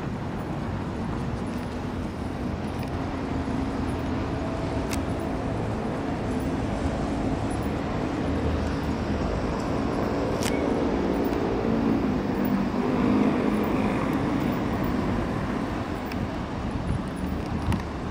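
Steady city road-traffic noise, with a vehicle engine hum that swells through the middle and fades towards the end, and a single sharp click about halfway through.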